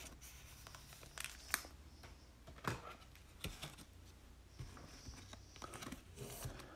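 Faint rustling and a few light clicks of a trading card being handled in a plastic sleeve and holder.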